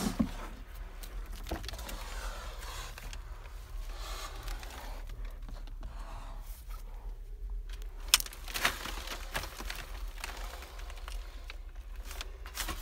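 Plastic vapor-barrier sheeting crinkling and rustling under someone crawling over it, with scattered scuffs and knocks, one sharper knock about eight seconds in.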